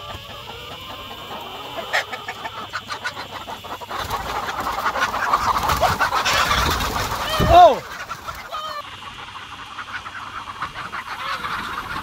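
A flock of laying hens clucking close up. About four seconds in, a rush of wing flapping starts and a loud squawk comes near the eight-second mark, then the clucking settles down again.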